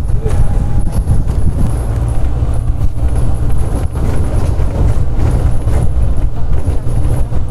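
Open Maruti Gypsy safari jeep driving along a dirt forest track: loud, steady engine and road rumble, with short knocks and rattles from bumps in the track.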